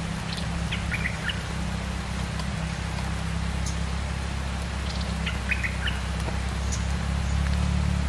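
A bulbul giving two short bursts of chirping notes, about a second in and again about five seconds in. Underneath runs a steady low rumble with patter from rain.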